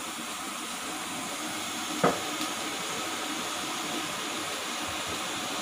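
Steady hiss from a gas cooktop with burners lit under a wok of freshly poured oil and a pressure cooker, and a single short knock about two seconds in.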